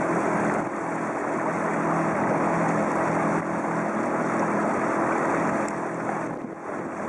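Boat's outboard motor running steadily under way, with rushing water and wind, dipping briefly near the end.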